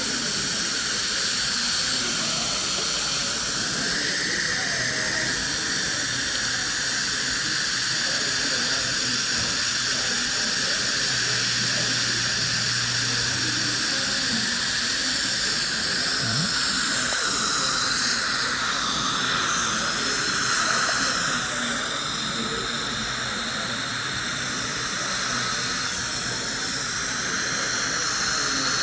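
Dental high-volume suction hissing steadily as it draws the laser plume away from the gum during diode-laser tissue removal.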